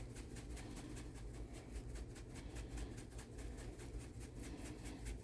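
Dried parsley shaken from a spice shaker jar into a bowl, a quick even rhythm of faint rattling shakes about five or six a second, over a low steady hum.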